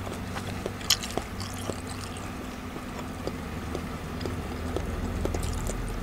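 Close-miked chewing with the lips closed: small wet mouth clicks and smacks, with one sharper click about a second in. A steady low hum runs underneath.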